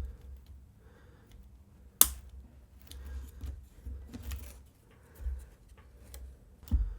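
Mechanical keyboard switches being pressed into a carbon fiber plate: one sharp, loud snap about two seconds in as a switch seats, among fainter clicks and low handling bumps.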